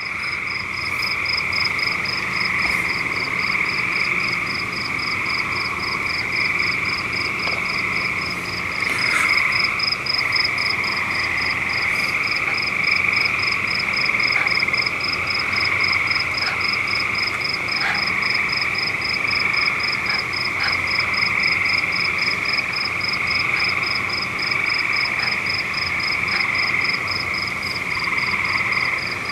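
Steady night chorus of calling frogs, with a rapid, evenly pulsing high note of about three or four pulses a second above it.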